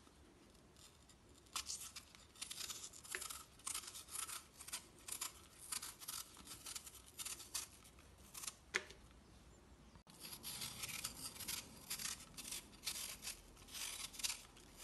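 Kitchen knife peeling red apples held in the hand: faint, quick crisp cutting strokes through the skin, several a second, with a momentary break about ten seconds in.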